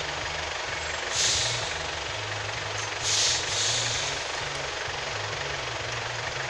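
A vehicle engine running steadily at a low hum, with two short hisses, about a second in and again about three seconds in.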